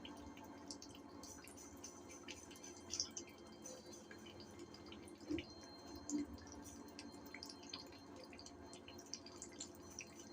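Faint, scattered drops of water dripping, a few small drips every second or two over quiet room tone.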